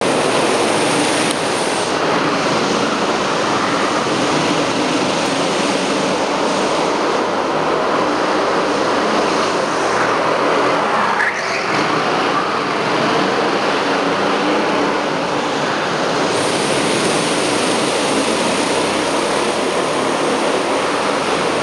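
Go-kart engines running loudly and steadily while driving on an indoor kart track, with another kart passing close alongside about ten seconds in.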